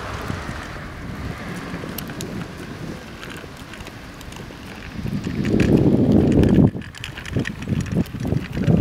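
Wind buffeting the camera microphone, with a louder rumbling gust about five seconds in, over scattered clicks and rattles from a child's bicycle with training wheels rolling along.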